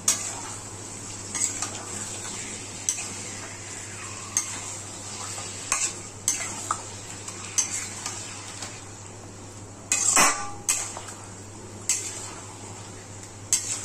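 A spatula stirring and turning marinated chicken in a kadai, scraping and clinking against the pan every second or so, loudest about ten seconds in. Under it is a light sizzle of the meat frying in hot mustard oil.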